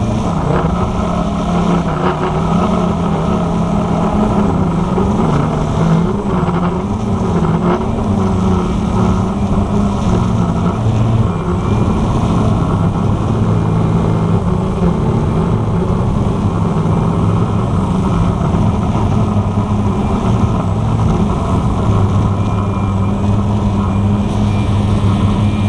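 Walkera QR X350 Pro quadcopter's motors and propellers buzzing, their pitch wavering up and down as the throttle shifts, then holding steadier near the end.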